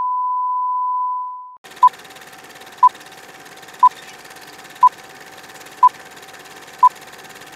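Steady test tone of the kind played with colour bars, cutting off after about a second and a half. Then a film-leader countdown: a short beep at the same pitch once a second, six times, over a faint steady hiss.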